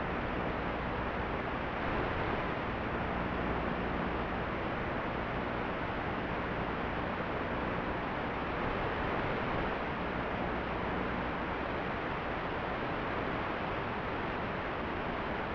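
Steady, even static hiss from the audio channel of an analog 5.8 GHz FPV video link, with a faint low hum underneath.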